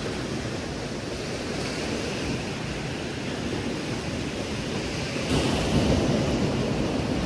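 Sea surf washing onto the beach, a steady rushing noise with wind buffeting the microphone, growing louder about five seconds in.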